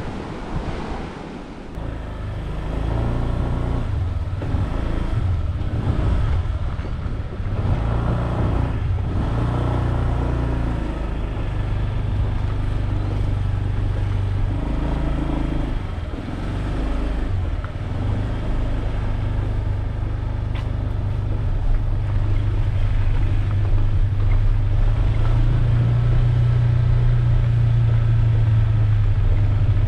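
Wind and surf for the first two seconds, then a small motorbike engine running steadily, its note stepping up and down as the bike rides along a rough gravel lane.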